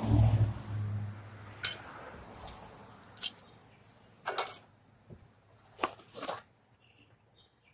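Small metal mounting-bracket hardware clinking and clicking as it is handled: about six sharp metallic clinks over several seconds, the loudest early on. A low hum sounds for the first second.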